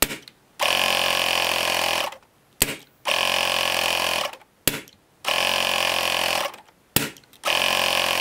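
12 V battery-powered tyre-inflator compressor running in repeated bursts of about a second and a half, each cutting off, followed by one sharp crack as the pressurised tank of a homemade air blaster is fired. The compressor restarts about half a second after each crack to refill the tank, four times over, showing the automatic refill cycle working.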